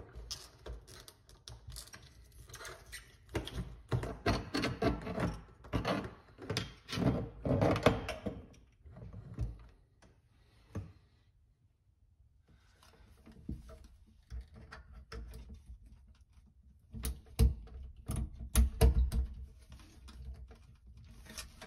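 Hand-handling noise from a kitchen faucet's side sprayer and its braided hose: clicks, taps and rattles against the sink deck and fittings. Near the end come a few louder thumps while the hose is worked onto its push-fit connection under the sink.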